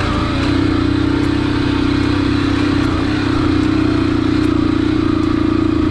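Motorcycle engine running steadily under way, with a constant low drone.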